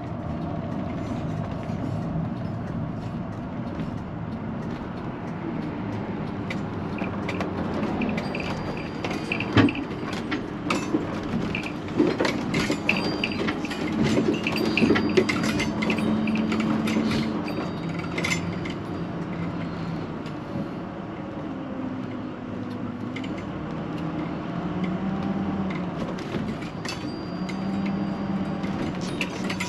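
Motorhome moving, heard from inside the cab: a steady engine and road hum, with scattered clicks and rattles from loose things in the cabin, busiest through the middle.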